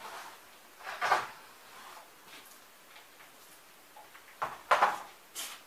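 A few short scraping, rustling bursts of handling, one about a second in and a louder cluster near the end. They come from cardboard sheets shifted on a worktable and a paint roller worked in its plastic paint tray.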